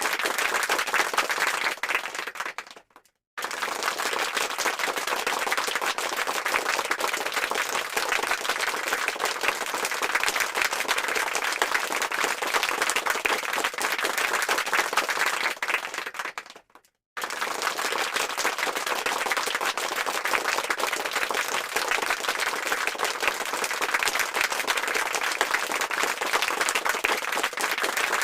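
Crowd applause sound effect: dense, many-handed clapping that fades and stops briefly about three seconds in and again about seventeen seconds in, then starts again at full level, as the effect loops.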